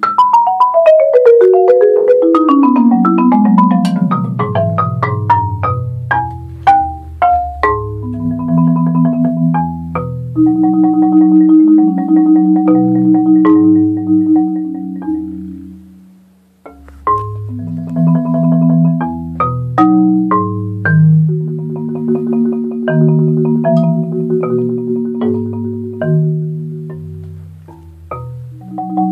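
Solo Marimba One concert marimba played with four yarn mallets: a quick run of notes falling into the low register, then sustained rolled chords, with a short break a little past halfway.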